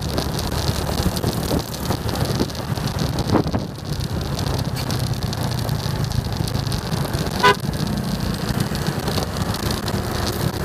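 Motorcycle engine running steadily while riding, under a haze of wind and road noise on the microphone, with one short vehicle horn toot about three quarters of the way through.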